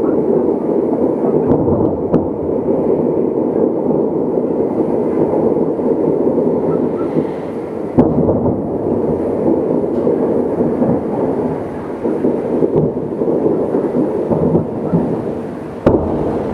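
Aerial fireworks display: many shell bursts going off over each other and merging into a continuous rumble, with two sharp, loud bangs about halfway through and near the end.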